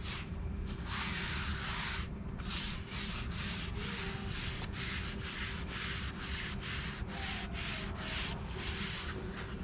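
Folded paper towel held in tongs, rubbed quickly back and forth over the oiled steel top of a hot griddle, in short scrubbing strokes about three a second after one longer sweep. It is spreading a thin coat of seasoning oil over the hot cooking surface. A steady low rumble runs underneath.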